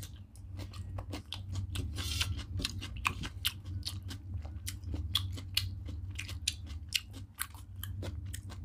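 Close-miked mouth sounds of fingers being licked and sucked clean after eating with the hand: wet lip smacks and sucking clicks, quick and irregular.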